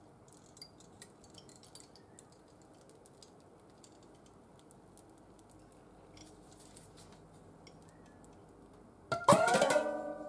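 Faint clicks of the soap and wooden cutter being handled, then about nine seconds in the taut wires of a multi-wire soap cutter snap free of the cut loaf and twang, ringing together at several pitches and fading slowly.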